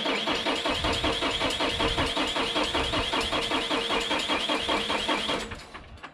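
Landini 8880 tractor's diesel engine being cranked by its starter motor: a steady starter whine with a fast, even chugging of compression strokes. The engine does not catch, and the cranking stops suddenly near the end. It is not firing because air got into the fuel system when the fuel filter was changed, and the system still has to be bled.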